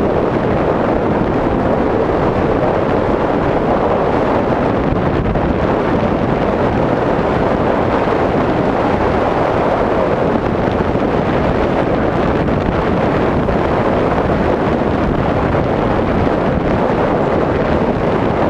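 Steady wind noise rushing over the microphone of a Yamaha Serow 225 trail motorcycle on the move, drowning out most other sound.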